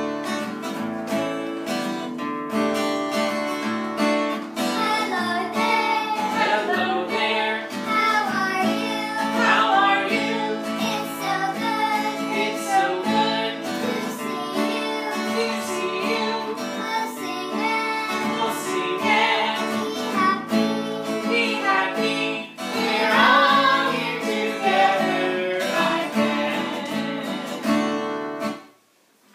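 Strummed acoustic guitar accompanying children singing a hello song. The guitar plays alone for the first few seconds before the singing comes in, and the song stops shortly before the end.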